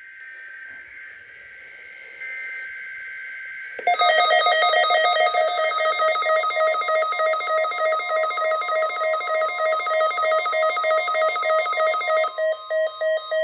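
NOAA Weather Radio alert test tones. Faint warbling data bursts come first. About four seconds in, a loud, rapidly pulsing electronic alarm tone starts and holds for about eight seconds. Near the end it breaks into choppy beeps over a steady alert tone, signalling a test of the weather-radio alarm.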